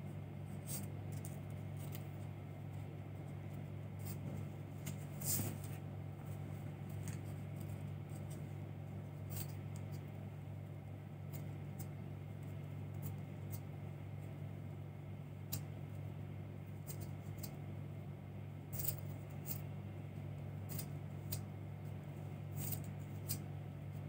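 Scattered small clicks and scrapes of thread being wrapped tightly around a clear plastic tubing hoop and the tube being handled, over a steady low hum.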